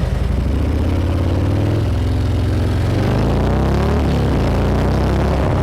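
Harley-Davidson Ultra Limited V-twin engine pulling under way, its note climbing, dropping back, then climbing again, with wind rushing over the helmet mic.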